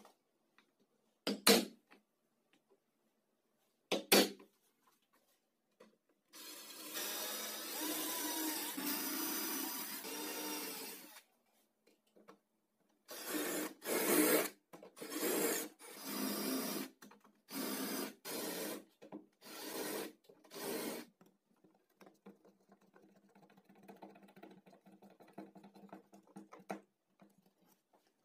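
A few short, sharp scratches of a scriber marking aluminium channel. Then an electric drill with a twist bit bores into the aluminium channel: one steady run of about five seconds, followed by a string of short bursts.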